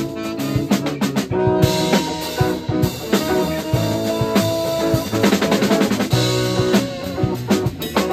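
Live psychedelic jazz band playing, with the drum kit to the fore: snare, bass drum and cymbal hits over held electric guitar and bass notes. A quick run of drum hits comes a little past the middle.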